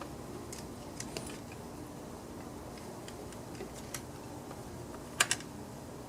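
Scattered light clicks and taps of hand work on a chainsaw's fuel line and tank, with a sharper double click about five seconds in, over a faint steady hum.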